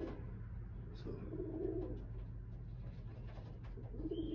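Domestic racing pigeons cooing: a few low coos, one at the start, one about a second and a half in and one near the end.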